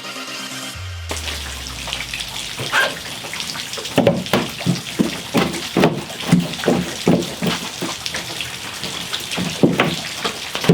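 Water running and splashing, with a quick run of sharp splashes or knocks about two to three a second from about four to seven seconds in, and a few more near the end.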